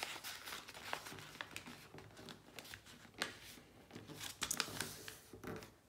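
A sheet of paper being folded and creased by hand: scattered rustles and short crisp crinkles as the fold is pressed flat.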